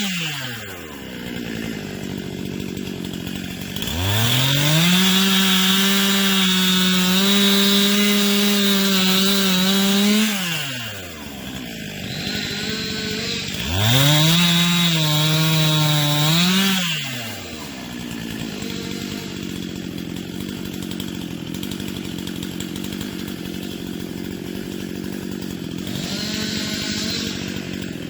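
Two-stroke chainsaw revved to full throttle twice while cutting wood, once for about six seconds and once for about three, dropping back to a steady idle in between and afterwards.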